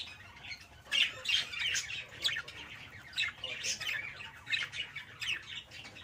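Budgerigars chattering: short, high chirps and squawks in irregular runs.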